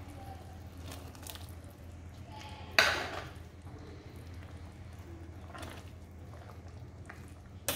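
Wooden spoon stirring a simmering sauce in a stainless steel skillet, with light knocks of the spoon against the pan and one sharp clatter about three seconds in, over a steady low hum.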